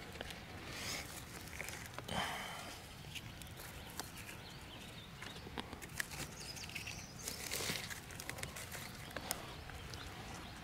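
Rustling and crunching of dry pine-needle litter from footsteps and hands, with scattered sharp snaps and clicks. The louder rustles come about two seconds in and again past the middle.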